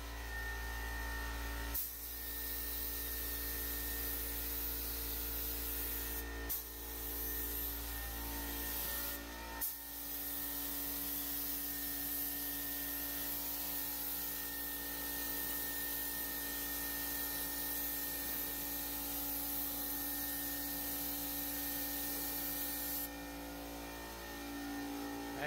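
Gravity-feed air spray gun spraying primer: a steady hiss of compressed air and atomised paint that starts about two seconds in, breaks off briefly twice and stops near the end. A steady low hum runs underneath.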